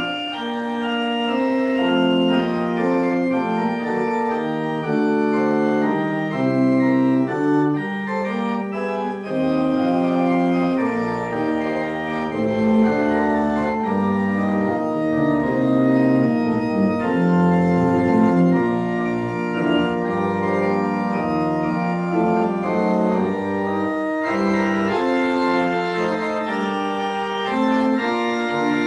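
Organ postlude at the close of a church service: several parts held in steady, sustained chords that move from note to note without fading.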